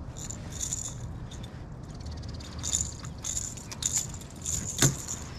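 Light metallic jingling and clicking of fishing gear being handled, with a sharper click near the end.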